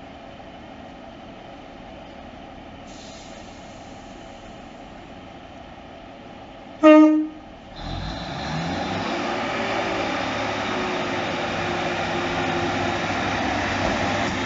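BREL Class 150/2 diesel multiple unit idling at the platform, then one short, loud toot of its horn about seven seconds in. A second later its Cummins diesel engines rev up and it pulls away, running louder to the end.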